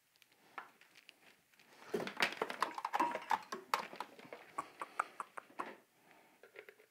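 Handling noise as a light's power cord is plugged in: a quick run of clicks, knocks and rustling, busiest from about two seconds in and dying away before the end.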